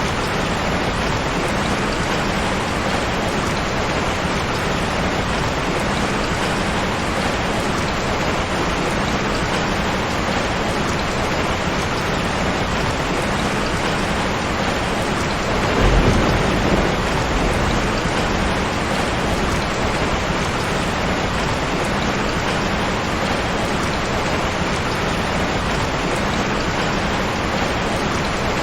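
Steady heavy rain, an even hiss of falling water, with a short low rumble of thunder a little past the middle.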